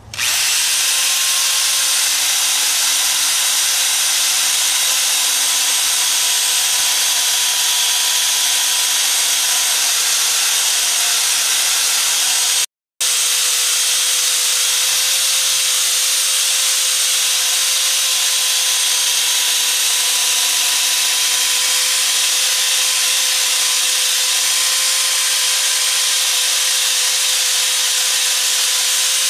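Ryobi power drill spinning a wire wheel brush against a rusty cast iron smoker grate: a steady motor whine under harsh scratching as the wheel strips the surface rust. The sound breaks off briefly about 13 seconds in, then carries on.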